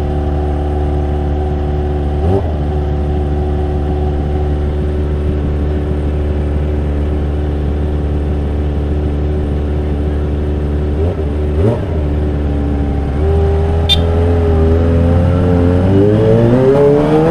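Kawasaki ZX25R's inline-four with a Yakuza R7 aftermarket exhaust, idling steadily with two short throttle blips. About 13 seconds in the engine note steps up, and near the end the revs climb as the bike pulls away.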